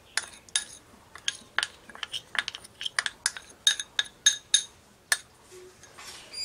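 Metal spoon clinking and scraping against a small glass bowl and a ceramic mixing bowl while scooping cornflour out: a quick run of bright, briefly ringing clinks that stops about five seconds in.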